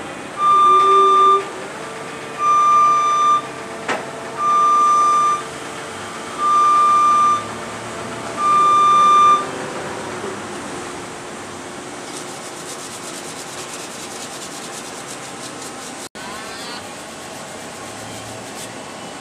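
Scissor lift's motion alarm beeping five times, each beep about a second long and about two seconds apart, over a steady machinery hum.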